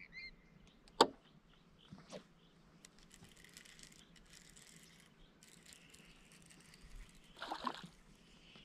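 Faint handling noise from a fishing rod and reel: one sharp click about a second in, a softer knock around two seconds, and a short rattle near the end.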